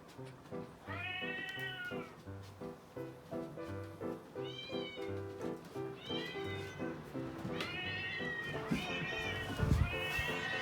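A cat meowing over and over, about six high, arching calls, the first the longest, over background music with a steady beat; a low thump near the end.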